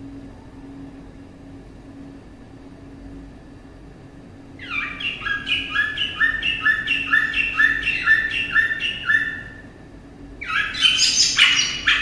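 Caged samyong songbird singing: a run of about ten evenly spaced, repeated notes, two a second, then after a short pause a louder, higher and busier phrase near the end. Before the song there is only a faint steady hum.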